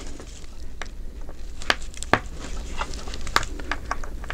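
Small, irregularly spaced clicks and light scrapes of a steel spring bar tool working at the lug of a Seiko VFA watch case, prying out the spring bar that holds the strap.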